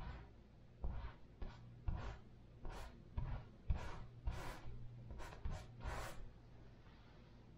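Short rubbing strokes of acrylic paint being worked onto a canvas, about a dozen in the first six seconds, a few with a soft low knock.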